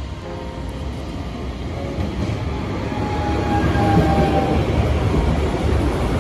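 A tram running on rails: a steady rumble that grows louder, with a thin whine from the wheels or motor for a second or so in the middle.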